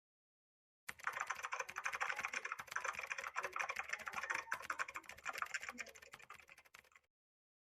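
Rapid computer-keyboard typing: a dense run of quick keystroke clicks that starts abruptly about a second in and cuts off abruptly about six seconds later.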